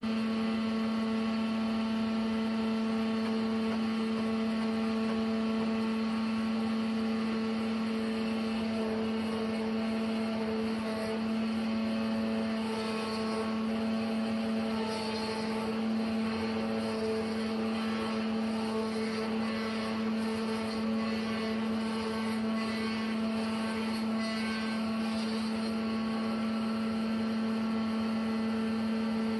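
Sawmill machinery running with a steady, even drone, one low tone held throughout. From about twelve seconds in to near the end, a rougher hiss comes and goes over it.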